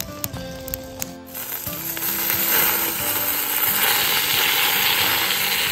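Background music for about the first second, then hot oil and chicken juices sizzling loudly in a Dutch oven under a whole roast chicken.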